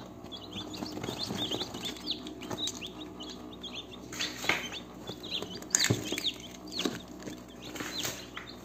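Many newly hatched domestic chicks peeping at once, a constant overlapping chorus of short high falling chirps, with a few light knocks among them.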